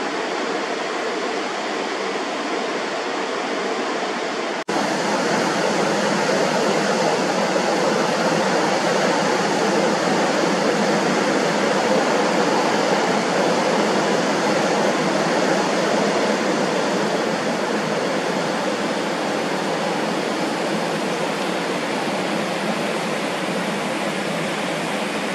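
Steady rush of water jetting from an outlet valve at the base of a dam and crashing onto the rocks below. It gets louder about five seconds in.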